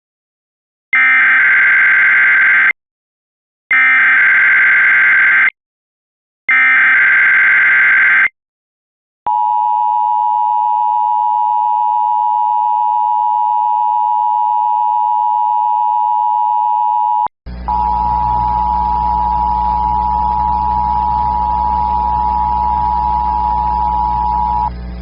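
Emergency Alert System broadcast tones: three short bursts of the buzzing digital SAME header, each just under two seconds, followed by the long steady EAS attention tone. About halfway through the tone breaks briefly and resumes over a low hum.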